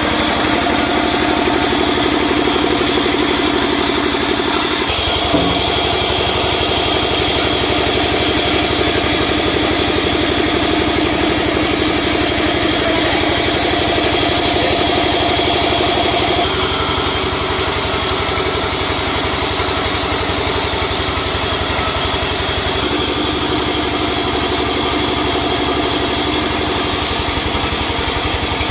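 Band sawmill running steadily, its blade cutting through timber over a constant machine hum. The tone shifts abruptly about five seconds in and again past the middle.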